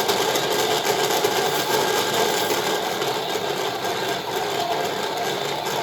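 Several washing machines running at once, a steady mechanical whirr with a fine rattle.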